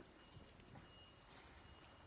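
Near silence: faint outdoor background with a few weak clicks and a faint thin high tone.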